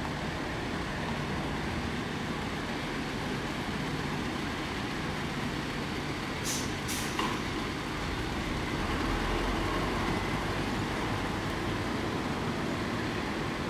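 Full-size diesel tour coach manoeuvring at low speed, its engine running steadily. Two short air-brake hisses come about six and a half and seven seconds in, and the engine's low rumble grows louder a couple of seconds later.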